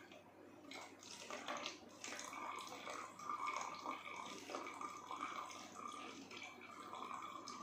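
Liquid trickling through a funnel into a plastic bottle, a steady watery pour.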